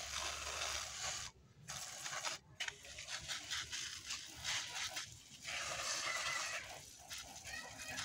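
Orange plastic hand-pump pressure sprayer jetting water onto potted plants: a strong, hissing spray that breaks off briefly twice in the first few seconds, comes in short spurts for a couple of seconds, then runs steadily again.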